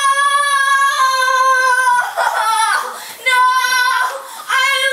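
A high-pitched voice holds a long cry on one steady note, breaks off about two seconds in, then comes back as shorter held cries on the same pitch.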